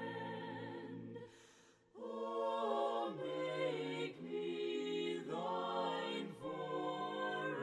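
Slow background choral music, voices holding long chords and gliding between them, with a brief pause about a second and a half in before the singing resumes.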